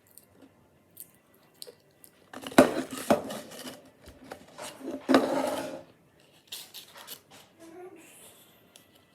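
Potato chips being eaten close to the microphone: crunchy, crackly chewing with two loud bursts of crunching and rustling, then smaller crackles.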